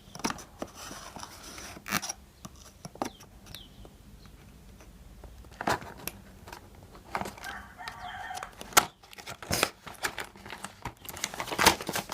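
Cardboard toy packaging being opened by hand: irregular tearing, crinkling and sharp clicks of card and plastic. A rooster crows in the background about seven seconds in.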